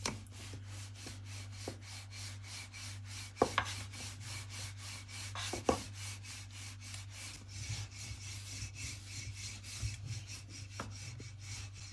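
Wooden rolling pin rolling pita dough out on a stone countertop: a quick, even rhythm of rubbing strokes, about three to four a second, with a few sharper knocks of the pin.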